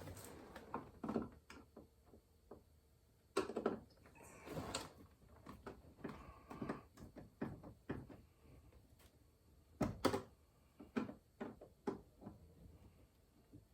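Irregular clicks and knocks of a hand tool working on the plastic trim of a car's rear door, prying off a small cover to reach a Torx screw, with a few louder knocks about three and a half, five and ten seconds in.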